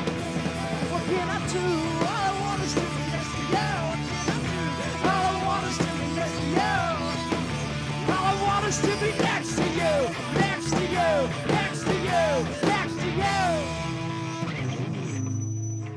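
Live rock band playing the closing bars of a song, with an electric guitar bending notes over the band; the music stops near the end.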